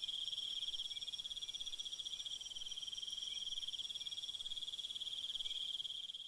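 Crickets chirping in a steady, high, fast-pulsing trill: the stock 'crickets' sound effect for an awkward silence. It fades out at the very end.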